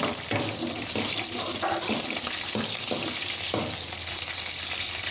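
Green chillies sizzling in hot oil in a kadai: a steady, loud frying hiss that cuts off suddenly at the end.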